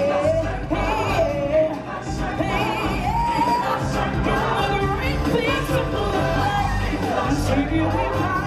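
Live stage-musical performance: singing with wavering held notes over a band's steady bass.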